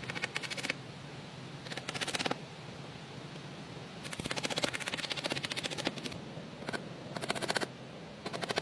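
Rapid clicking or rasping in repeated bursts, each lasting from half a second to about two seconds, with the longest one in the middle.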